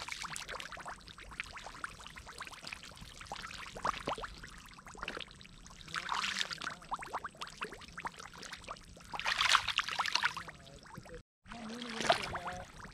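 Gloved hands splashing and sloshing in the shallow, muddy water of a drained pond while groping for fish. The water sounds are louder about six seconds in and again around nine to ten seconds in.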